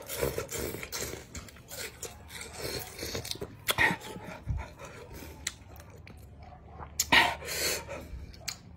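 A man chewing a very sour bilimbi fruit with wet mouth clicks and smacks, breathing hard and letting out strained, gasping grunts against the sourness. The louder gasps come about four seconds in and again near the end.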